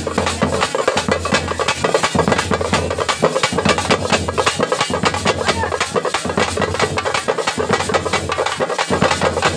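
Group of drums played in a loud, fast, unbroken rhythm, many beats a second.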